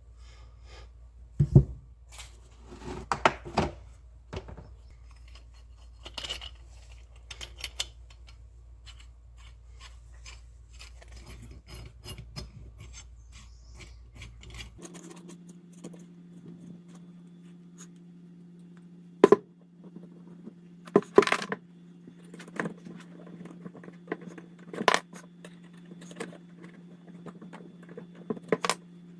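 Metal hand tools and small metal parts being handled: scattered clinks, taps and scrapes, a few of them sharp knocks, over a steady low electrical hum.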